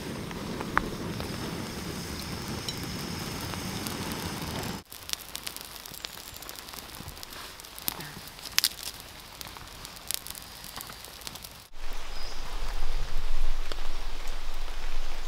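Steady rain falling through the forest onto the tarp, with a freshly lit campfire crackling and popping in sharp clicks. Near the end the rain gets louder, with a low rumble.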